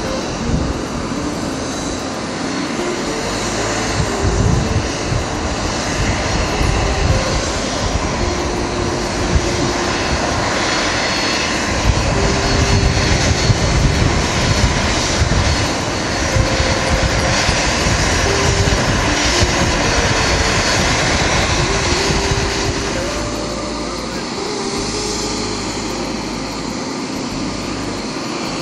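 Twin-engine jet airliner's engines during a landing, a steady jet rush that swells louder for several seconds midway as the aircraft rolls down the runway, then eases off.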